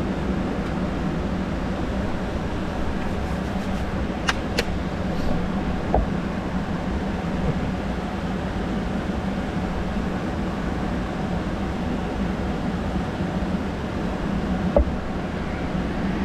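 Ventilation fans in a camper trailer running at full power: a steady whirring rush with a low hum, broken by a few faint clicks.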